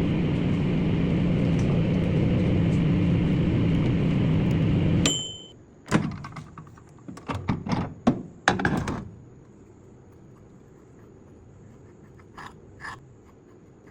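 Microwave oven running with a steady hum that cuts off about five seconds in with a short high beep. A quick series of clicks and thunks follows over the next four seconds, the door opening and the dish inside being handled.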